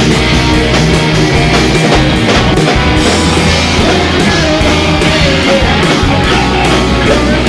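Live heavy metal band playing loud: electric guitar, bass guitar and drum kit, with a man singing into a microphone.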